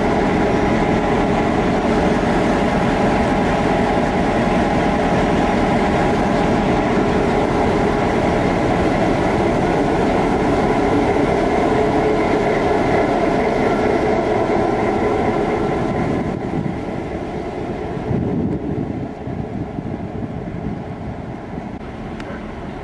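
Southern Shorthaul Railroad T class diesel locomotive passing close by, its engine running with a steady drone. About 16 seconds in the engine sound falls away and the quieter rumble of empty flat wagons rolling on the rails takes over.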